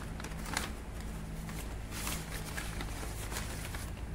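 Plastic packaging rustling and crinkling as a mailer bag is opened and a blister pack pulled out of it: a few short crackles and a brief rustle about two seconds in, over a steady low hum.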